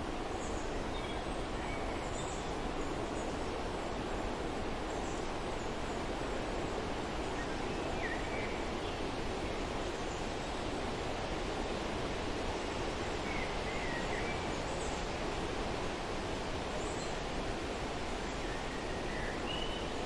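Steady wind blowing through trees, rustling the leaves, with a few faint short bird chirps.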